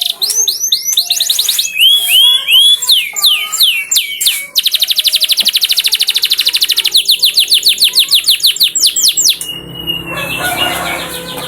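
Canary singing: quick downward-sweeping whistles and long, rapid rolling trills of repeated notes. In the last two seconds a lower, steadier sound with several tones takes over.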